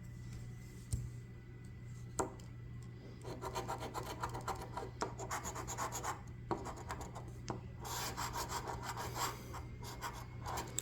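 A coin scratching the coating off a scratch-off lottery ticket. Quiet for the first few seconds, then rapid back-and-forth scraping strokes in bursts with short pauses.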